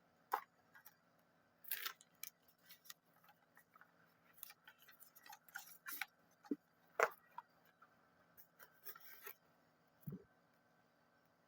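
Irregular clicks, taps and rustling scrapes of a phone box and its small accessories being handled and packed back in, with a soft low thump about ten seconds in.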